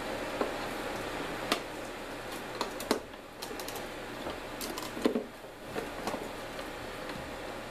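A handful of sharp, light clicks and knocks as a plastic Little Giant condensate pump and its cords are handled and set in place, over a steady background hum.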